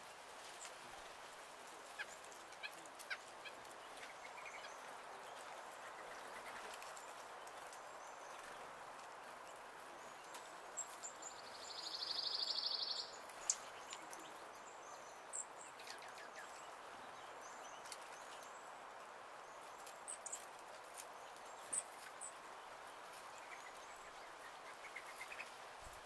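A songbird's rapid, evenly pulsed trill lasting about a second and a half, about halfway through, over a steady outdoor hiss with scattered small clicks and a few short high chip notes.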